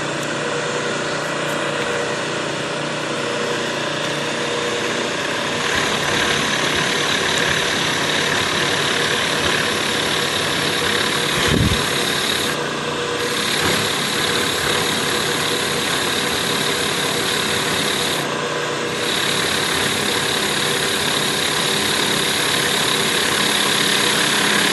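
Milling machine spindle turning slowly, under 500 rpm, while a large cutter plunges into quarter-inch hot-rolled steel plate: a steady cutting and motor noise with a constant hum. A short low knock comes about halfway through.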